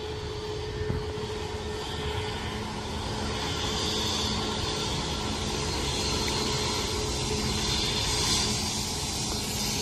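Jet engines of a Boeing 737 airliner running as it rolls along the runway, a steady hum with a held tone that grows gradually louder as the aircraft comes closer.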